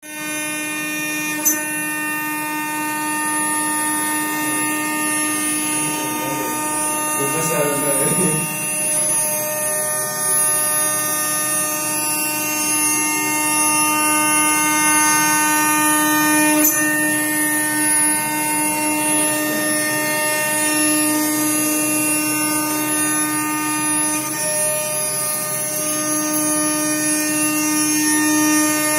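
Small CNC engraving router's spindle running with a steady whine as its cutter engraves an aluminium die plate; the main cutting tone breaks off briefly near the end and then returns.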